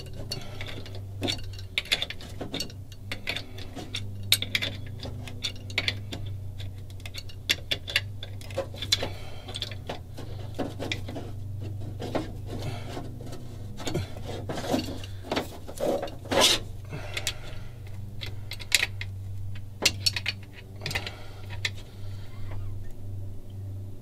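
Adjustable wrench clinking and clicking against the terminal nuts and studs of a 12 V battery disconnect switch as the cable nuts are tightened, in irregular metallic ticks over a steady low hum.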